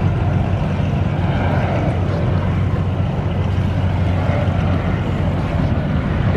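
Boeing 737 jet airliner on approach, its engines a steady low rumble.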